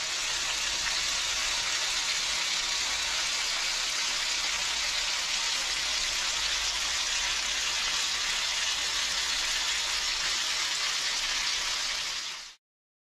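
Tautog (blackfish) fillets frying in hot fat in a pan, a steady bright sizzle that fades out near the end.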